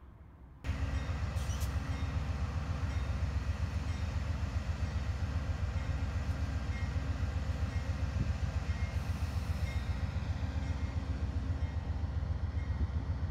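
Amtrak passenger train rolling past, its trailing GE P42DC diesel locomotive running with a steady low rumble that begins abruptly under a second in.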